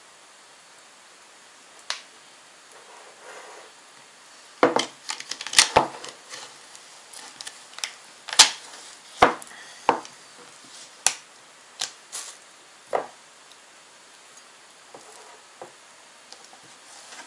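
A spoon scraping and knocking as hard-set frozen ice cream is scooped out of a plastic tub and dropped into a bowl: irregular sharp clicks and knocks, thickest about five to six seconds in.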